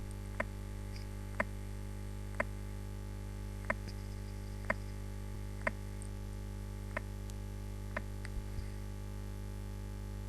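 Heart sounds played back as a teaching example of an aortic ejection systolic click just after the first heart sound, the click pattern of a bicuspid aortic valve. Short sharp clicks come about once a second over a steady electrical hum.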